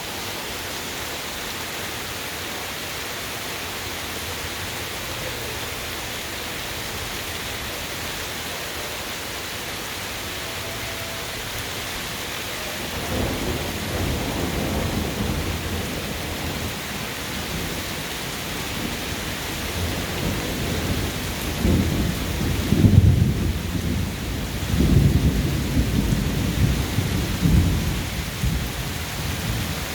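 Heavy rain pouring steadily, with thunder rumbling in from a little under halfway through and building into louder rolls in the latter part.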